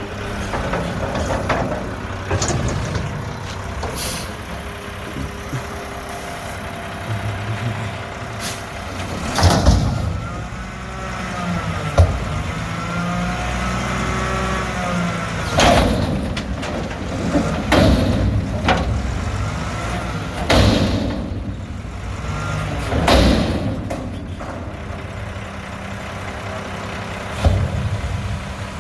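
Mack garbage truck with a McNeilus front-loader body, its diesel engine running, rising and falling in pitch in the middle. Several short bursts of hissing air and clanks are spread through it.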